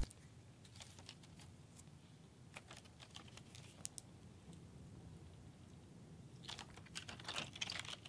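Dry, stiff translucent shimmer putty being squeezed and stretched by hand, giving faint sticky clicks and crackles, with a denser run of louder crackles near the end as it is pulled out.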